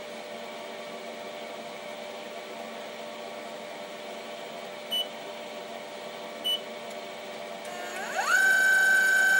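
Denford Orac CNC lathe's control panel gives two short beeps as buttons are pressed, about five and six and a half seconds in, over a steady low hum. Near the end the spindle motor starts with a whine that rises in pitch and settles into a steady high tone, louder than the hum.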